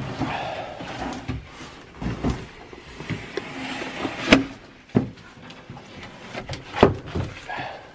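Plywood floor boards being slid and set into place on a van floor: scraping with a handful of irregular wooden knocks, the loudest about four seconds in.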